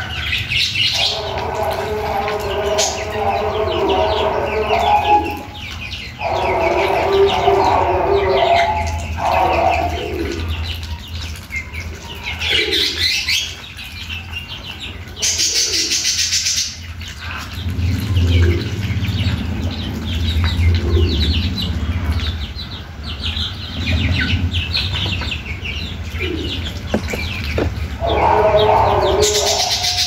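Young ducks and chickens feeding together at a bowl of wet mash: rapid dabbling and pecking of bills in the feed, with runs of bird calls in the first ten seconds and again near the end. A brief high hiss about sixteen seconds in.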